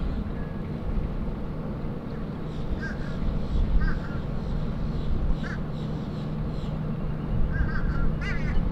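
Short bird calls, singly and then several in quick succession near the end, over a steady low hum and rumble.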